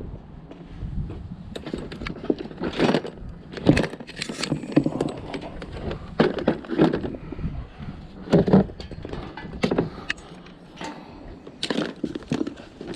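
Scrap items being handled and loaded into a packed vehicle: irregular clattering and knocking of metal and plastic, with a dozen or so sharp knocks and rattles.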